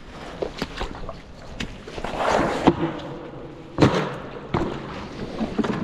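Irregular crunching and crackling of ice and frozen snow crust, broken by several sharp knocks, the loudest about four seconds in.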